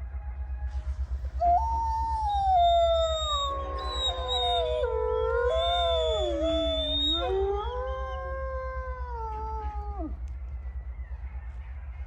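A chorus of wolves howling: several long howls overlap, their pitches gliding up and down, starting about a second and a half in and dying away near ten seconds, over a steady low rumble.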